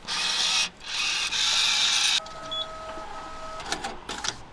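Car park pay machine printing a ticket in two whirring runs, then two steady electronic beeps.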